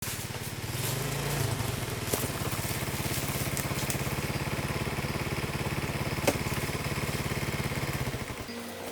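A small engine running with a steady rapid beat, cutting off shortly before the end, with a couple of sharp clicks along the way.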